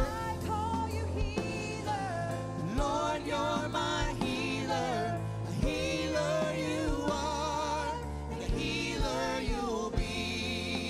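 Live gospel worship song: a man and two women singing with vibrato into microphones, backed by keyboard and bass guitar.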